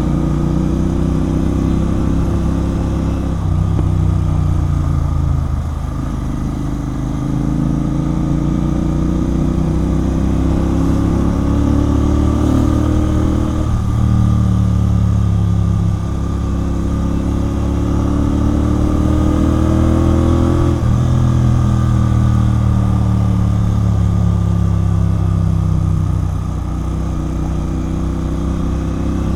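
Royal Enfield Continental GT 650's 648 cc parallel-twin engine through a Red Rooster aftermarket exhaust, ridden under way. The exhaust note climbs steadily in pitch as the bike pulls through the revs and drops sharply at each gear change, three times.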